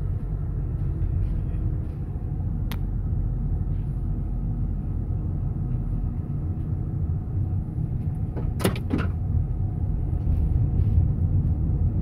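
Road and engine noise heard inside a car's cabin at low speed: a steady low rumble. A sharp click comes about three seconds in, and two or three more come near nine seconds.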